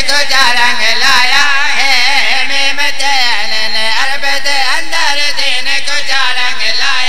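Several men's voices singing a devotional qasida together into a microphone, a drawn-out ornamented melody with wavering, trembling pitch, unaccompanied and amplified through a PA.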